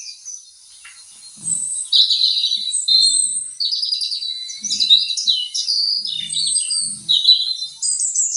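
Several birds chirping and trilling at once, quick overlapping high calls that thin out briefly and then run densely from about two seconds in.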